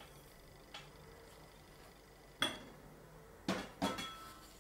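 Four short knocks and clinks of a ceramic bowl and a spatula against a stainless steel mixing bowl while sugar is tipped into flour, the loudest about halfway through and two close together near the end, the last ringing briefly.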